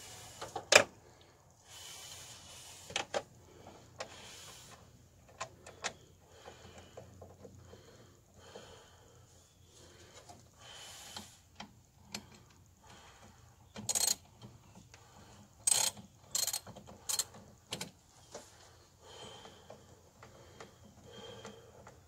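Socket ratchet clicking in short runs as the battery terminal bolts are turned, with a sharp knock of metal tools about a second in. The loudest ratchet runs come in a cluster a little past the middle.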